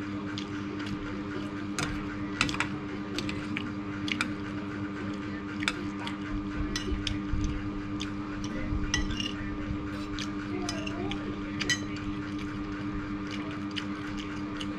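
Eating sounds: a metal spoon and fork clinking and scraping on a plate of rice, with wet chewing and mouth sounds, over a steady low hum.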